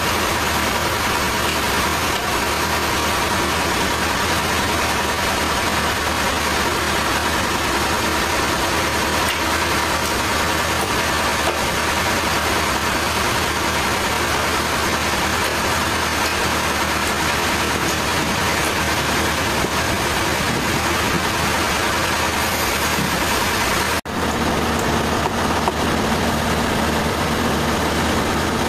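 Sawmill machinery running steadily: an even, loud mechanical noise with a constant hum. The sound briefly drops out and resumes slightly changed about 24 seconds in.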